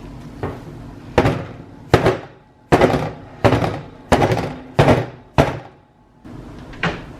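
A filled soap mould thumped down on a work surface about seven times in a steady rhythm, roughly one thud every 0.7 seconds, to settle the freshly poured soap batter and knock out air bubbles. A lighter knock comes before the run and another near the end.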